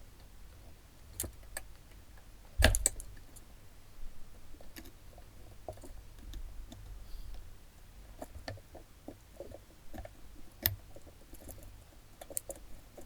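Scattered light clicks and metallic taps of small wires and a soldering iron being handled while cut wires are pulled out of a computer power supply's circuit board. A sharper knock comes about two and a half seconds in, and another about ten seconds in.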